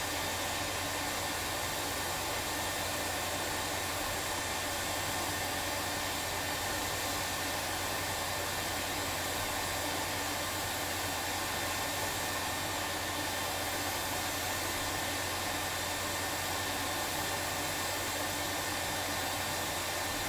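Hot air rework station blowing a steady hiss of hot air onto a circuit board, melting the solder under a chip so that it can be lifted off.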